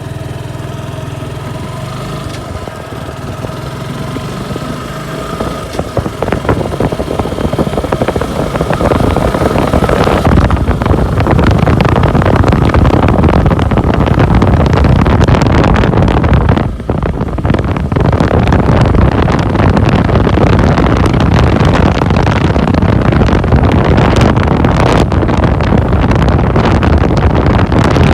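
Suzuki Gixxer SF's single-cylinder engine idling steadily for about five seconds, then the bike pulls away and gets louder as it picks up speed, the engine mixed with rushing wind. About two-thirds of the way through the sound briefly drops, as at a gear change, then returns to full riding noise.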